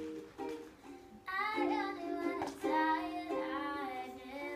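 A ukulele being strummed in chords, joined about a second in by a girl singing a song over it.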